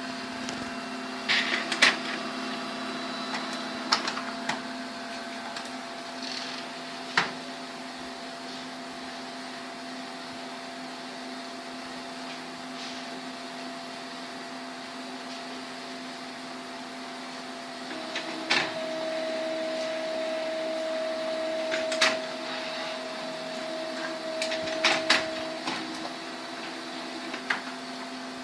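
HP Color LaserJet CP2025n laser printer running with a steady motor hum and scattered sharp clicks and snaps of its mechanism, a higher tone joining for several seconds past the middle. No abnormal noise: it is fitted with an original HP black toner cartridge.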